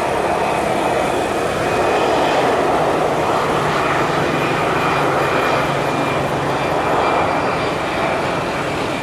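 Airbus A320-214 jet engines at takeoff thrust: a loud, steady rush of jet noise with a thin high whine.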